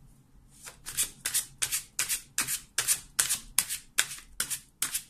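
A deck of Lenormand cards being shuffled by hand: a quick run of crisp card slaps, about three or four a second, starting about half a second in.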